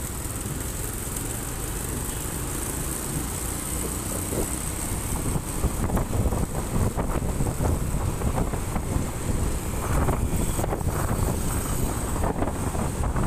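Wind buffeting the microphone of a moving motorcycle, over the low rumble of its engine and the surrounding road traffic. The gusts grow stronger and choppier from about halfway through.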